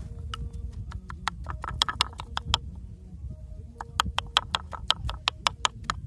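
A run of sharp clicks and knocks over a low rumble. The knocks are scattered at first, then come about six a second from about four seconds in.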